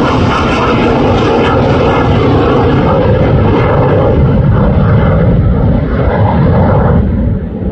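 F-35 Lightning II fighter jet's single turbofan engine rumbling loudly as the jet flies past on approach with its landing gear down. The noise is steady and a little softer near the end.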